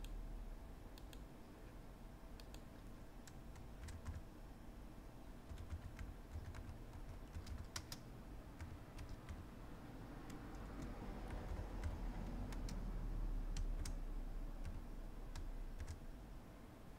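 Typing on a computer keyboard: sparse keystroke clicks at an uneven pace, over a steady low hum.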